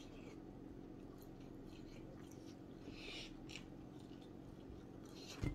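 Quiet mouth sounds of a man eating very hot chicken wings: faint chewing and small clicks, and a hissing breath through the mouth about three seconds in, against the burn of Carolina Reaper heat. A low thump comes near the end, over a faint steady hum.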